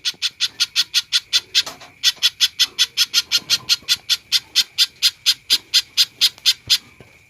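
Spiderhunter (pijantung) calling in full voice: a fast, even run of short, sharp, high notes, about five a second, with one brief break about two seconds in, stopping shortly before the end.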